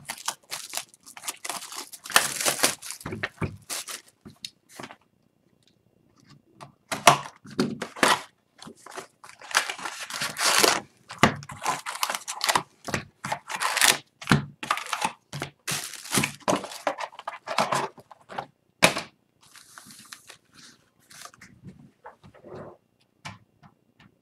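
Plastic shrink wrap crinkling and the cardboard of a hockey-card hobby box being torn open, then the foil card packs rustling as they are lifted out and stacked. The rips and crackles come in an irregular string, with a short pause a few seconds in.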